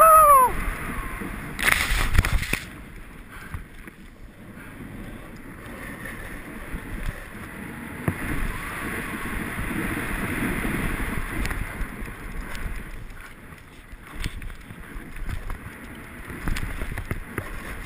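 Snowboard sliding and carving down a snow slope: a continuous rushing hiss of the board's base and edges on the snow, mixed with wind on the camera microphone. A short louder rush about two seconds in, with scattered small clicks and scrapes afterwards.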